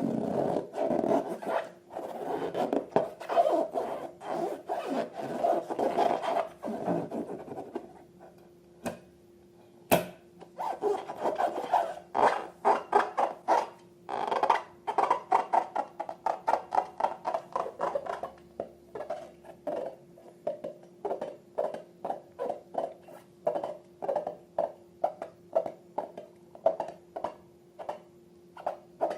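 Slime being worked by hand. First comes a few seconds of continuous rubbing and squishing, then a short pause with a single click. After that come quick, regular squelching strokes, about two to three a second, over a faint steady tone.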